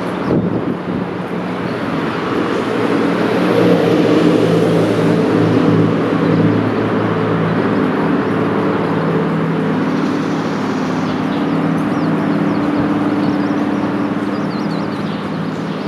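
Rushing river water, with a motor's steady low hum laid over it that grows stronger a few seconds in.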